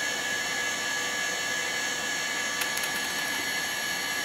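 Quantum Bigfoot CY 5.25-inch hard drive spinning and writing zeros during a low-level format: a steady high-pitched whine with hiss. A few faint ticks come a little past halfway.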